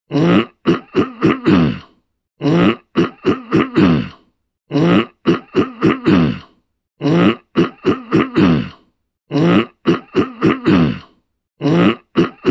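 A person clearing their throat over and over, in quick runs of three to five short pushes. The runs come about every two seconds, with silence between them.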